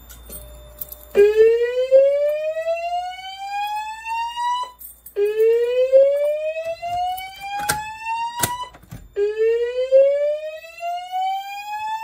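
Notifier DVC voice-evacuation system sounding the whoop evacuation tone through its speakers: three rising sweeps, each about three and a half seconds long, starting about a second in. This is the alert tone that comes just after a manual pull station is activated and just before the spoken fire evacuation message. A few sharp clicks sound over it.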